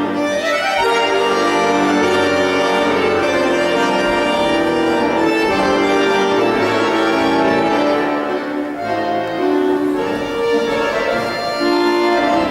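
Instrumental music: a melody over held chords, with a steady, full sound.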